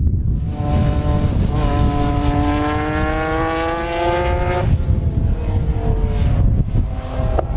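Race car accelerating hard on the circuit, its engine note rising steadily for about four seconds, then cutting off abruptly at a gear change or lift, with the engine continuing more quietly. Strong wind buffets the microphone throughout.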